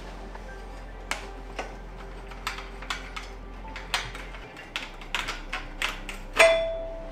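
Scattered light clicks and taps of metal tools and bicycle parts being handled, a dozen or so at irregular spacing. One louder metallic clink near the end rings briefly.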